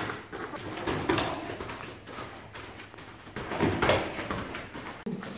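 Bare feet thudding and scuffing on foam mats and karate gis rustling as two karateka move through a partner drill: a few short knocks, the loudest a little under four seconds in.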